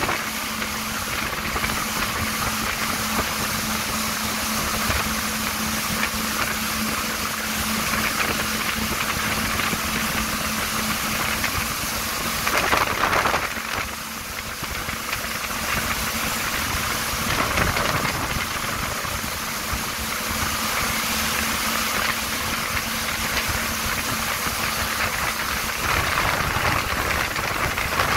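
Yamaha VX1100 jetski's four-stroke engine running steadily at towing speed, with a constant hum under the rush and hiss of the jet wake and spray. The water noise swells briefly about halfway through.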